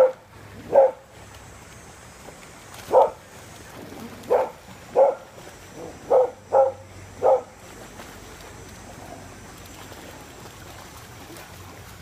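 A dog barking repeatedly: about eight sharp barks in the first seven or so seconds, some in quick pairs, then the barking stops.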